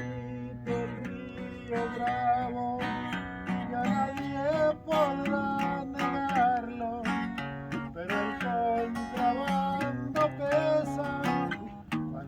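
Music: a song with strummed acoustic guitar and a wavering melody line above it.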